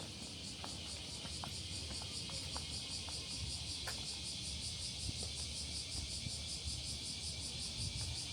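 Insects chirring steadily in a rapid pulsing rhythm, with a low rumble and a few faint ticks underneath.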